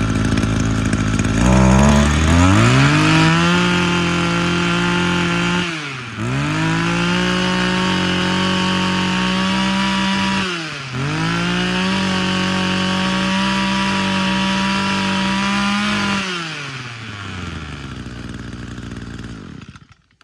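Kyoritsu Echo 2625 brush cutter's 26cc two-stroke engine running. It idles, is throttled up to a steady high rev about two seconds in, and drops back briefly twice. Near the end it falls to idle and then cuts off.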